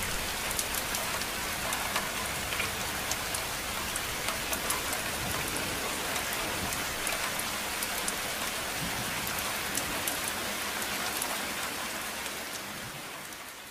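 Steady rain falling, a dense hiss with scattered drop ticks, fading out near the end.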